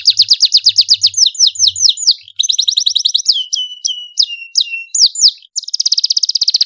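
Domestic canary singing loudly: a fast rolling trill of rapidly repeated high notes, then slower, lower swooping notes about three seconds in, a brief break, and the fast trill again near the end.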